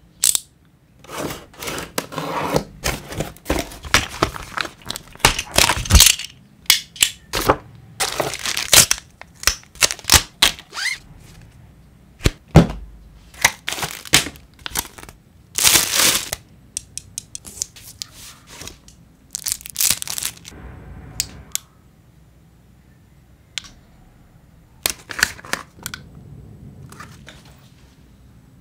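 Unboxing: a cardboard box and its packaging handled and opened, with tearing, plastic wrap crinkling, and knocks as pieces are set down on a table. The handling is dense and irregular for most of the time, then thins out to a few sharp sounds near the end.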